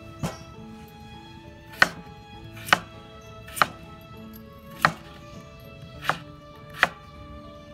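Kitchen knife slicing a peeled potato into rounds, the blade knocking on a wooden cutting board with each cut, about seven cuts at roughly one a second. Soft background music plays underneath.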